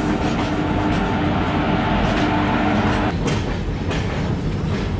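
Passenger train with LHB coaches running, heard through an open coach doorway: a steady rumble of wheels on rail with a steady hum that stops about three seconds in, then a few clacks of wheels over rail joints.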